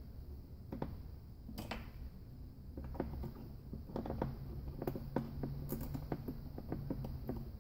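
Irregular light clicks and taps of small metal transmission parts being handled, fitted and set down on a steel workbench while the Hydra-Matic outer valve body is assembled by hand, over a faint low hum.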